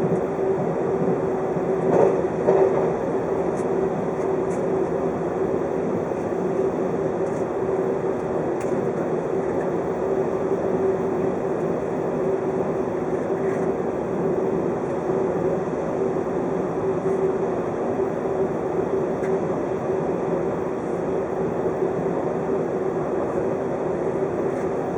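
Running noise of a 583 series electric train at speed, heard from inside the passenger car. A steady rumble carries a constant hum, with a couple of louder knocks about two seconds in.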